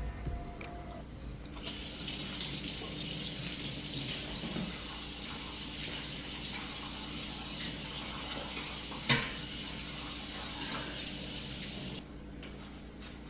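Kitchen tap running into a sink: a steady rush of water that starts about two seconds in and is shut off abruptly near the end, with a single knock partway through.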